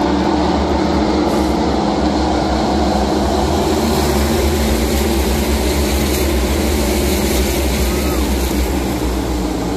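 NASCAR Cup Series stock cars' V8 engines running at racing speed around the track, a loud, steady drone of the whole field that eases slightly near the end.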